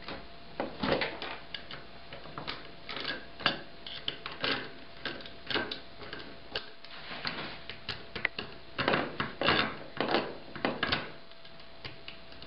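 Irregular clicks, taps and knocks of metal and plastic parts being handled: a linear actuator's aluminium extrusion being set onto standoff blocks and its clamp flanges being fitted.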